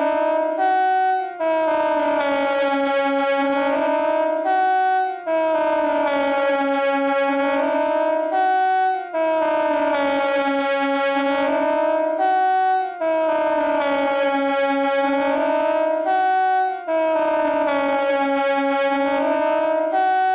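KTG-10 siren sounding a wail whose pitch sags and rises again about every four seconds, with a brief break between cycles: the rising-and-falling general alarm signal of the Swiss siren test.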